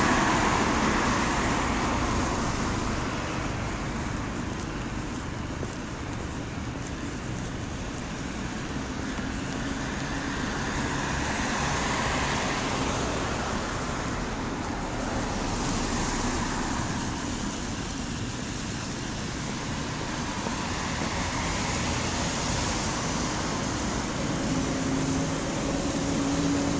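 Rain with road traffic: a steady hiss that swells and fades slowly as vehicles pass on the wet road.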